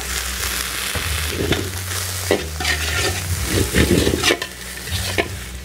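Cooking wine splashed into a hot steel wok of stir-fried vegetables, egg and meat, sizzling hard, while a long metal wok ladle scrapes and clanks against the pan as the food is tossed. A low steady hum runs underneath.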